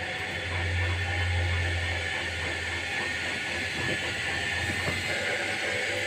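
Indesit washing machine's brushed motor turning the drum at wash speed, a steady low hum with a whirring hiss, briefly louder in the first two seconds. The motor runs evenly, without pulsing, on newly replaced carbon brushes.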